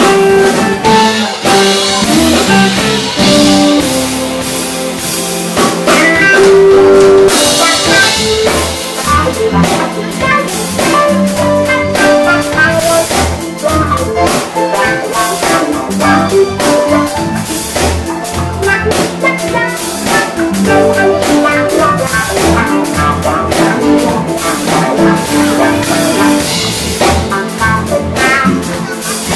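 Live band playing instrumental funk-jazz: a Stratocaster-style electric guitar with a drum kit, electric bass and keyboard.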